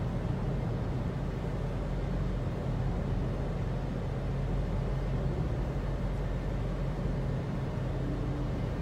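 Steady low drone of vehicle engine and tyre noise while driving along a highway.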